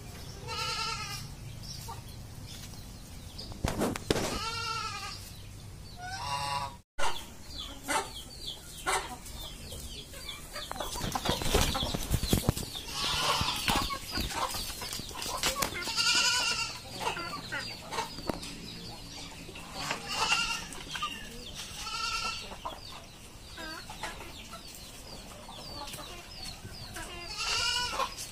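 Backyard flock of domestic geese and Indonesian village chickens calling: a few honks from the geese early on, then, after a cut, repeated clucks and calls from the chickens.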